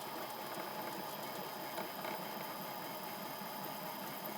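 3D printer running, its stepper-driven belt filament feeder turning. A steady mechanical hum with a faint, constant high whine.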